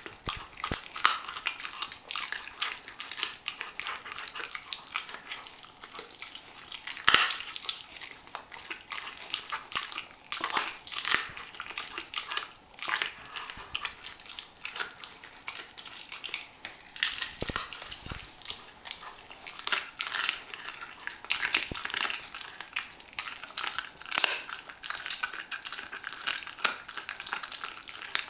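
Weimaraner puppy chewing a raw chicken wing held in a hand: wet gnawing with many irregular crunches as the bone and gristle crack between its teeth.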